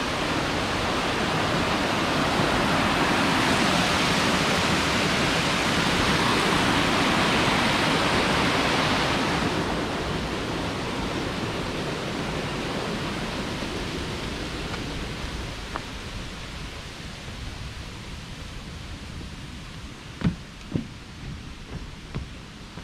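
Steady rush of falling water, loudest in the first half and growing fainter after about ten seconds, with a few light knocks near the end.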